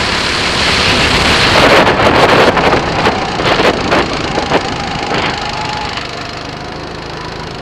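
Birel N35 rental go-kart slowing down: engine and wind noise fade steadily, with a few sharp knocks and rattles partway through, then the engine settles to a quieter steady running note near the end.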